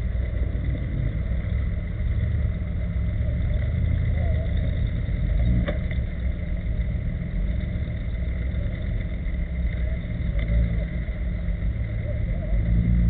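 A Jeep Cherokee's engine runs steadily at low revs as the Jeep crawls slowly up a steep muddy bank.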